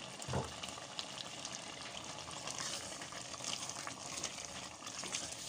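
Pot of palm-oil vegetable soup simmering and bubbling on the stove while a wooden spoon stirs through it, with a soft knock of the spoon just after the start.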